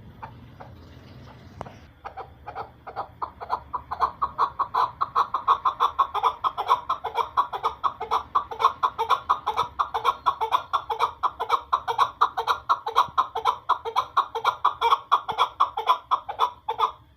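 Chukar partridge calling: a long, fast run of clucking notes, about four to five a second, starting about two seconds in and growing louder over the next few seconds.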